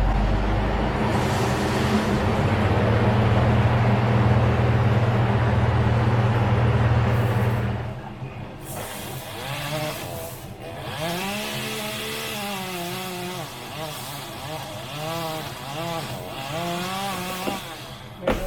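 A chainsaw running loud and steady at full throttle for about eight seconds, then quieter, its pitch rising and falling repeatedly as the throttle is worked.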